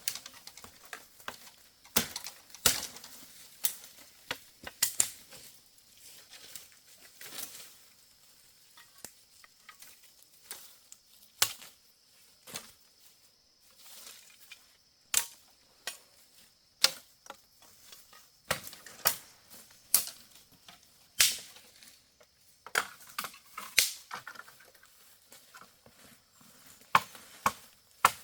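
Firewood being chopped with a blade: sharp, irregular strikes about one every second or so, some much harder than others.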